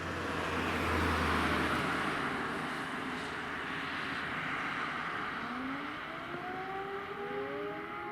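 A road vehicle passes, its engine and tyre noise loudest about a second in and then fading. From about five seconds in, a motor-driven civil defence siren winds up, its several tones rising together and levelling off into a steady wail near the end.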